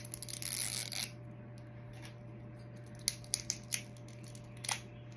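Small cardboard mystery-figure box being torn open by hand: a rasping tear about a second long near the start, then light crinkles and clicks as the packaging is handled.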